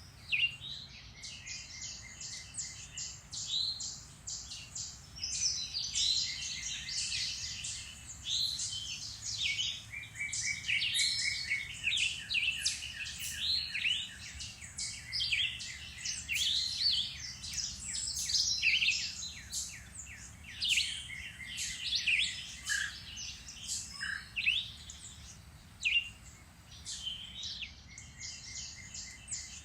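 A chorus of several songbirds singing and calling in spring woodland, with overlapping chirps, quick trills and whistled phrases, busiest through the middle.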